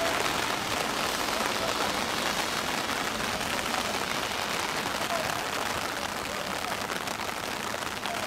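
Steady outdoor hiss on a rugby pitch, with faint, distant shouts from the players now and then.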